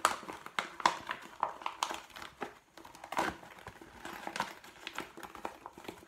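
A clear plastic mesh zip file bag crinkling and rustling in the hands as its sides are pressed and its base pushed back out into a pouch. The sound is a run of irregular crackles.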